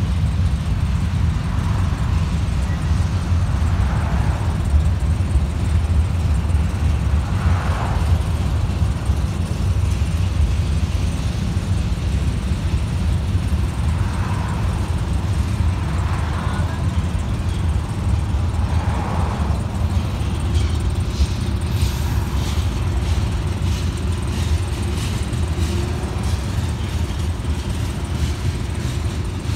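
Freight train of covered hopper cars rolling past at a grade crossing: a steady, heavy rumble of steel wheels on the rails. About two-thirds of the way in, a quick run of light clicks joins it.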